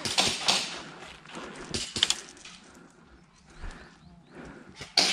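Crunching and crackling of dry leaves and twigs underfoot in uneven bursts, with a sharp crack near the end.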